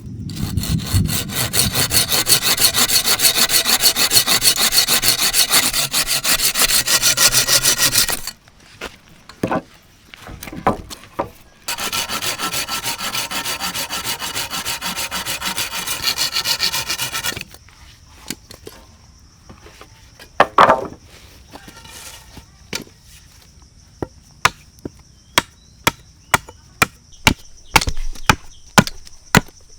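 Hand saw cutting through wood in two long bouts of rapid, even back-and-forth strokes. A run of sharp wooden knocks follows, growing more frequent near the end.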